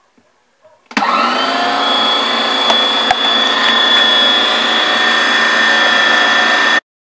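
Electric meat grinder running while grinding tomatoes, a steady motor whine with a constant high tone. It starts suddenly about a second in and stops suddenly near the end.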